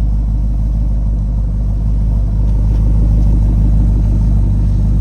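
Tuned Chevrolet Camaro SS's L99 6.2-litre V8 idling steadily, warming up after a cold start, with a slight swell in loudness about two and a half seconds in.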